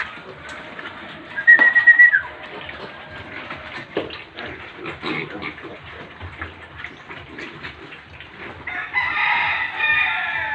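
Piglets scrambling and eating feed on a concrete pen floor, with many scattered clicks and scuffles. A short, high call comes about one and a half seconds in, and a rooster crows for about a second near the end.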